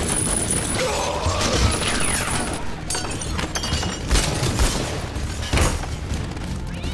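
Overlapping gunfire from several handguns, with glass shattering. A few heavy shots stand out in the second half.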